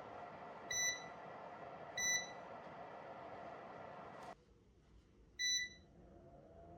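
Short electronic beeps, each a single high tone: two about a second apart, then one more about five and a half seconds in. Under them a faint steady hum cuts off abruptly about two-thirds of the way through.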